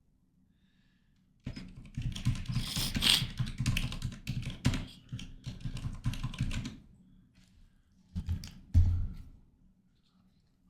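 Typing on a computer keyboard: a quick run of keystrokes lasting about five seconds, then a pause and a few more strokes near the end, one of them heavier.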